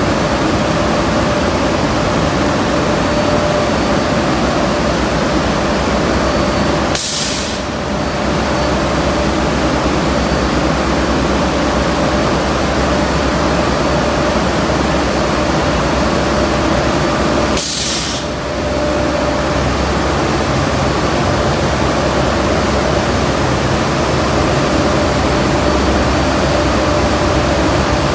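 Powder coating equipment running with a steady rush of air and a faint hum. Three short, sharp hisses come about ten seconds apart, and the rush dips briefly at each.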